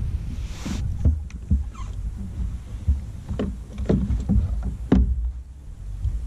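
Irregular hollow knocks and thumps on a kayak, about seven of them, over a steady low rumble, with a short splash-like hiss about half a second in.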